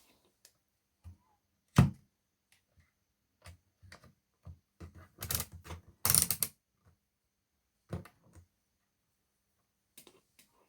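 Irregular, sharp clicks and light knocks, like small objects being handled or tapped. The loudest comes a little under two seconds in, and a quick cluster follows about five to six and a half seconds in.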